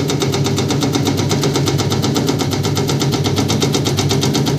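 Motor-driven leaf-slicing machine running steadily while cutting leaves, with a rapid even beat of about a dozen strokes a second over a steady motor hum.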